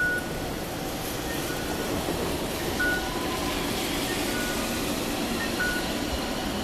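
Toyama Light Rail TLR0600 low-floor tram pulling away, its running noise building slightly. Short high electronic beeps sound every second or two over it.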